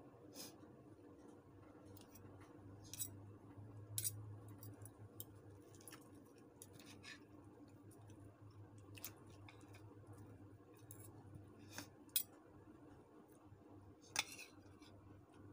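Metal spoon and fork scraping and clicking in a plastic bowl of rice, as irregular small clicks with a few louder clinks, over a faint low steady hum.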